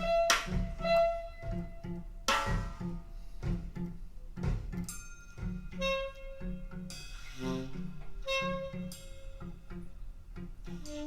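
Jazz trio recording of saxophone, double bass and drums played back through a home hi-fi stereo system. The saxophone holds long notes over regular plucked bass notes and sharp drum and cymbal strikes.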